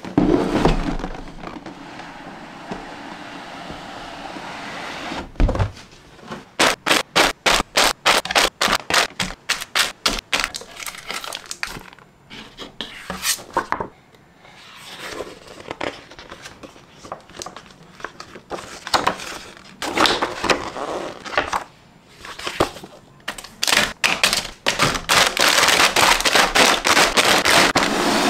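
Cardboard model-kit box being opened and unpacked by hand: scraping and rubbing of cardboard, a thump about five seconds in, then a quick run of scratchy strokes. After that comes uneven rustling of the paper manual and the plastic-bagged parts runners, growing dense near the end.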